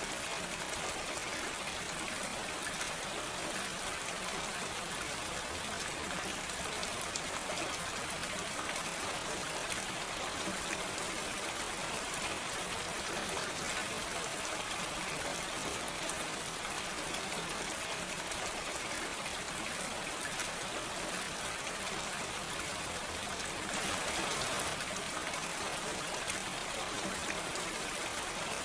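Steady, gentle rain falling with fine pattering drops and no thunder, swelling slightly about three-quarters of the way through.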